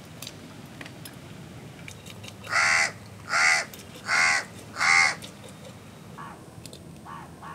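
A crow cawing four times in a row, harsh calls about three-quarters of a second apart, followed by two fainter caws near the end.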